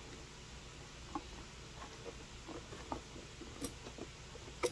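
Faint, scattered clicks and taps as a scooter's metal ignition lock assembly is pushed and worked into place against the plastic cowl and frame, with a sharper click near the end.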